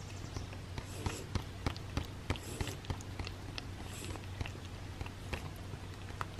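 Cat licking a tuna churu paste treat off a paper plate: quick, irregular wet tongue clicks, several a second, over a faint steady low hum.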